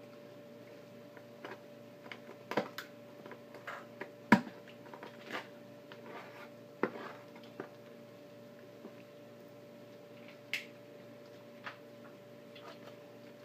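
Raw chicken being handled and cut up on a wooden cutting board: scattered irregular knocks, clicks and soft wet squishes. The sharpest knock comes about four seconds in.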